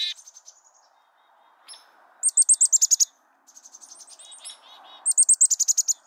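Black-capped chickadee alarm calls: three quick runs of high, thin notes, about ten a second, each run under a second long, the middle run softer and mixed with a few lower notes.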